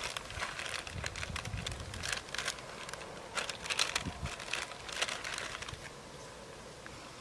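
Plastic potato-chip packet crinkling in bursts of crackles as it is handled, opened and reached into. The crackling is strongest around the middle and dies down near the end.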